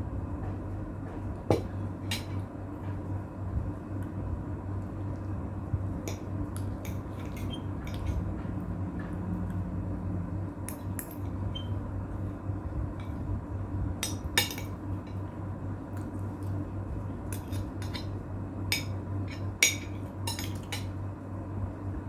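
Irregular light clinks and taps of tableware against a plate during a meal, over a steady low hum.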